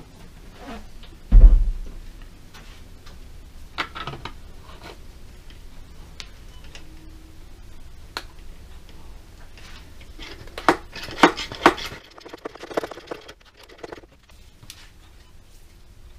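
Audi A3 ABS pump running with a low hum during a VCDS bleed cycle, then cutting off about twelve seconds in. A heavy thump just over a second in, and scattered clicks and knocks, clustered just before the hum stops.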